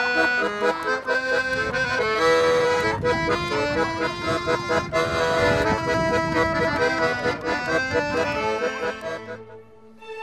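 Instrumental music with a busy melody of quickly changing sustained notes, fading out near the end.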